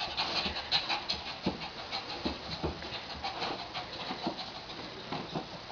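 A dog's faint, soft panting with small irregular rustles and taps as it moves about on its bed.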